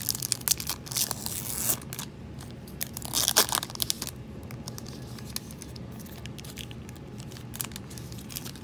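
A trading-card pack wrapper being torn open and crinkled: dense crackling for about two seconds, one louder tear a little after three seconds in, then lighter, scattered crinkles as the cards are handled.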